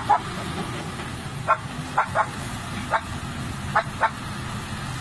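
A dog barking repeatedly: about seven short, sharp barks, some in quick pairs. Under the barks runs the steady low rumble of a working Caterpillar hydraulic excavator's diesel engine.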